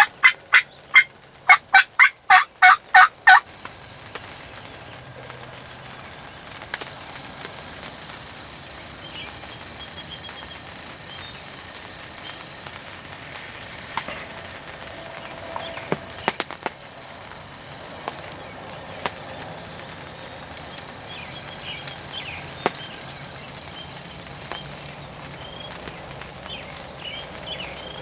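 Turkey yelping: a quick series of about ten loud yelps in the first three seconds. Afterwards only a steady background hush with faint small-bird chirps and a few sharp ticks.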